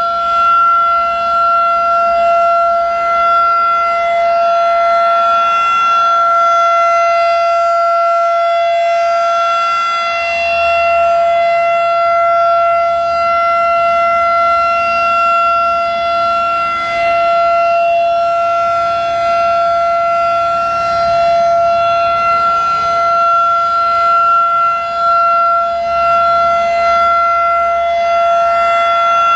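Federal Signal 2001-DC electromechanical outdoor warning siren sounding a steady alert tone at one constant pitch. The tone swells and fades every five seconds or so as the rotating horn sweeps past.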